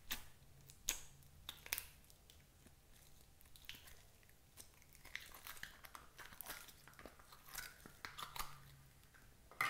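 Sticky slime being squeezed out of a soft plastic cup and pulled apart by hand: a run of irregular small crackles and pops, with sharper pops near the start and at the end.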